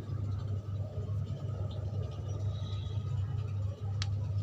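Steady low hum, with a single short click about four seconds in.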